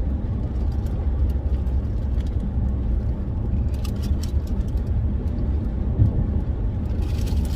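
Steady low rumble of a car driving, heard inside the cabin: engine and road noise.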